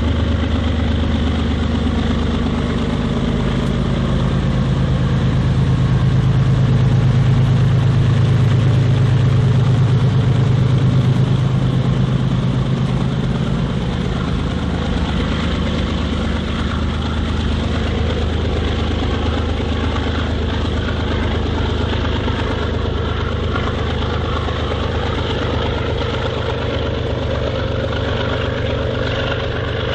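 BNSF diesel freight locomotives running as they pass close by, their engines' rumble swelling to its loudest around the middle and then easing slightly as the train rolls on.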